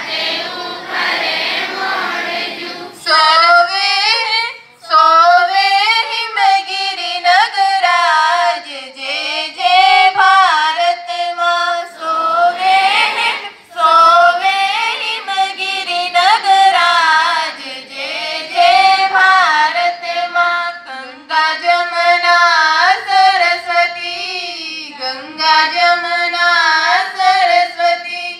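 A group of voices, schoolchildren and a woman, singing a morning assembly prayer together in one melody, phrase by phrase with brief pauses between lines.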